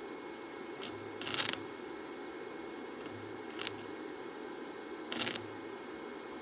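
Three short crackling bursts of electric arc welding, each lasting under half a second, like tack welds, over a steady workshop hum.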